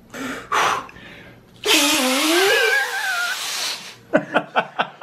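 A man blowing hard through a hard-boiled egg held to his lips to force it out of its shell: a loud rush of breath lasting about two seconds, with a wavering pitched tone in it. It is followed near the end by short bursts of laughter.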